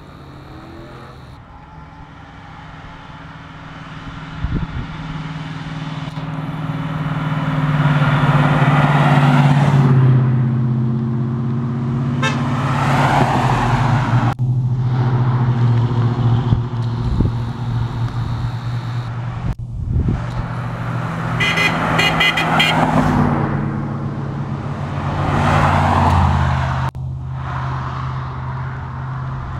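Classic Mopar muscle cars driving past one after another, each engine swelling loud as it goes by. A car horn toots in several short blasts about two-thirds of the way through.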